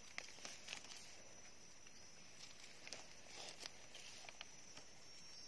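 Faint footsteps and scattered light snaps and rustles in forest leaf litter, over a faint steady high-pitched tone.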